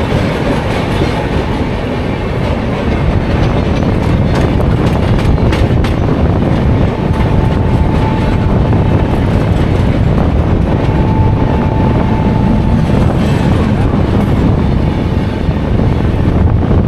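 Indian Railways express trains crossing on adjacent tracks: a loud steady rumble with wheel clickety-clack, heard from a moving coach as the Kaifiyat Express passes. A faint steady whine comes in twice in the middle.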